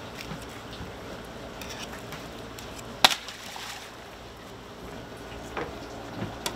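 Knocks from handling and cutting fish at a cleaning table: one sharp, loud knock about three seconds in and a few softer knocks near the end, over a steady wash of background noise.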